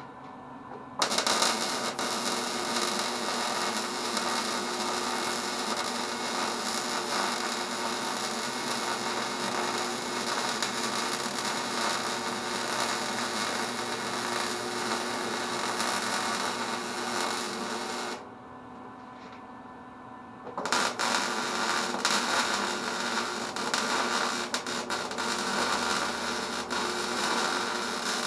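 Electric arc welding on angle iron: the arc's steady crackling hiss runs for a long bead starting about a second in, cuts off sharply for about two seconds, then strikes up again for a second bead.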